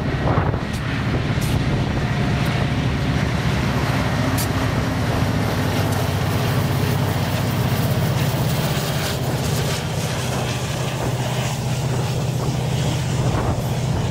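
A freight train passes at close range: BNSF diesel locomotives, a GE Dash-9 leading and an EMD SD70ACE second, give a steady low engine drone as the second unit goes by. Ballast hopper cars follow, rolling past on steel wheels and rail with a few sharp clicks.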